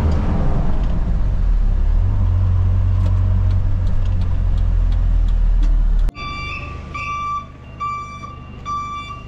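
Light truck's engine droning steadily as heard from inside the cab on a road test, its note rising slightly about two seconds in. After a sudden cut about six seconds in, the truck's reversing alarm beeps four times at a high pitch, roughly once every 0.8 s, over a quieter running engine.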